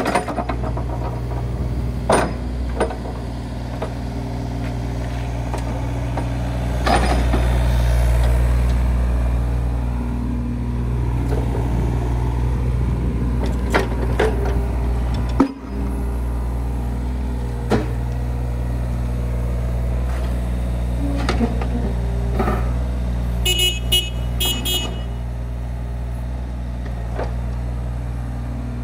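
2021 Hitachi ZX33U-6 mini excavator's diesel engine running steadily as the machine slews and works its boom and bucket. The engine note swells for a few seconds under hydraulic load, with scattered clunks and knocks from the machine. A short run of high beeps comes near the end.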